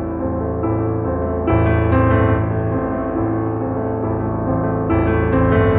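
Slow instrumental background music of sustained piano-like keyboard chords, with a new chord coming in twice, about every three and a half seconds.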